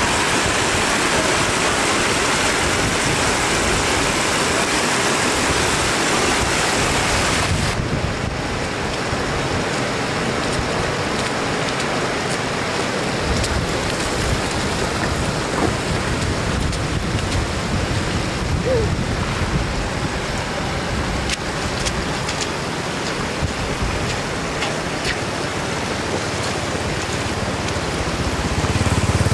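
Shallow floodwater rushing across a road, a steady wash that turns duller about eight seconds in. Near the end a low engine hum comes in.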